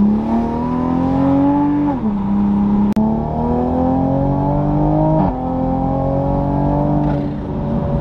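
2020 Toyota Supra's turbocharged 3.0-litre inline-six, fitted with an aftermarket downpipe and tune on the stock exhaust, accelerating hard from inside the cabin. The engine pitch climbs, drops at an upshift about two seconds in, climbs again and drops at a second upshift about five seconds in, then holds and eases off. A single sharp click sounds about three seconds in.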